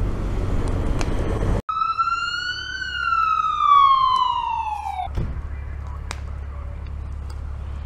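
Fire engine siren sounding one wail that rises briefly and then winds down steadily in pitch over about three seconds. A steady noisy rumble with scattered pops comes before it, and a low steady rumble follows.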